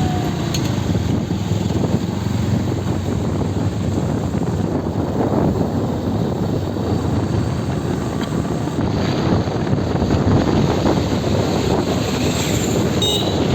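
Wind buffeting the microphone of a moving motorcycle: a loud, steady, low rush with no break.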